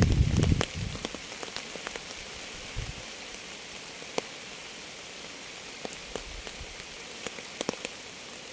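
Steady rain hiss with individual drops ticking sharply at irregular moments. A loud low rumble fades out within the first second.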